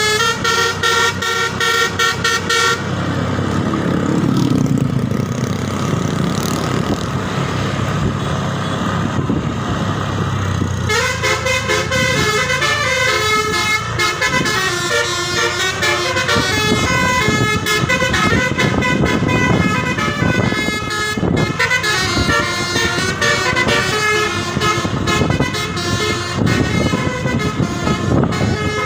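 Putera Utama bus's multi-tone telolet horns playing a quick, changing tune. After about three seconds they stop and a low engine rumble rises and falls. About eleven seconds in, the horns start another tune that runs on.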